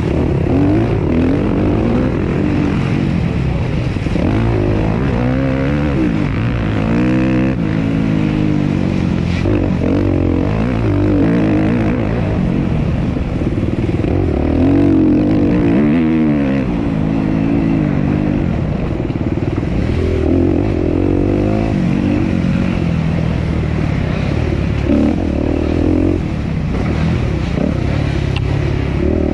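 Suzuki RM-Z250's single-cylinder four-stroke dirt bike engine under race load, its pitch rising and falling again and again as the throttle is opened and closed.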